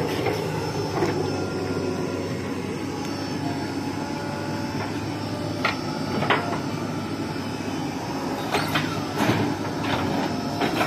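Diesel engines of a JCB 3DX backhoe loader and Mahindra tractors running steadily, with a scattering of sharp knocks as the loader bucket tips earth into a steel tractor trolley.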